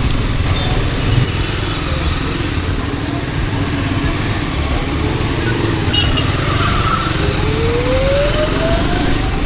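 Triumph Scrambler 400X single-cylinder motorcycle being ridden, its engine running under a steady low rumble of wind on the microphone; near the end the engine note rises in pitch as it speeds up.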